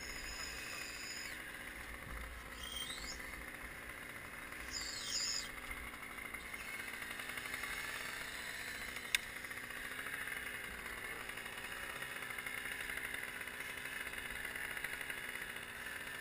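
A bird gives a few high whistles that glide up and down in the first six seconds, over a steady engine hum. A single sharp click comes about nine seconds in.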